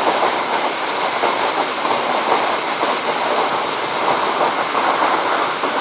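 Loud, steady rush of water pouring over granite boulders, like a waterfall or cascade.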